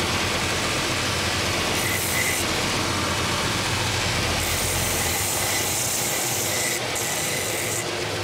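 Purpose-built last-sanding machine running steadily, its motor and sanding-belt drums giving a constant hum and rush. A hiss rides on top and briefly drops out about two seconds in and again near the end.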